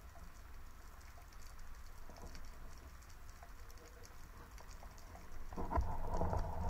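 Underwater ambience picked up by the camera: faint, scattered crackling and clicking over a low rumble of water. About five and a half seconds in, a steady hum joins and grows louder.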